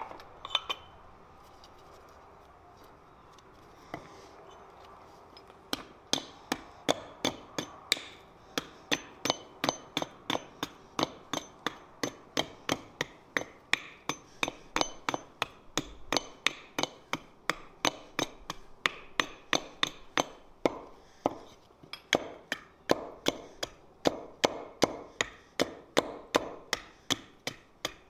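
Hatchet chopping at the end of a bark-covered wooden stick on a wooden chopping block, shaving it to a point. The sharp, steady strikes start about six seconds in and come a little over two a second.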